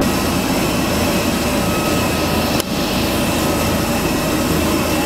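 Steady jet-aircraft turbine noise: a loud rush with a whine, heard on an airport apron beside a parked airliner. It breaks briefly with a click about halfway through.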